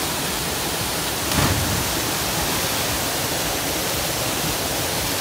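Small waterfall pouring into a rock pool: a steady rushing hiss of falling water, with one brief low thump about a second and a half in.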